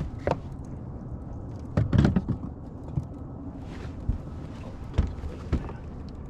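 Irregular knocks and thumps on a fishing boat, loudest in a cluster about two seconds in, over a steady low rumble.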